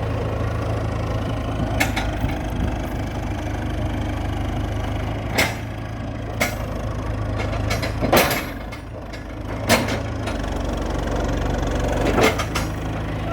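1998 JCB backhoe loader's diesel engine idling steadily just after starting, with about six sharp clunks scattered through. About ten seconds in, the engine note shifts lower.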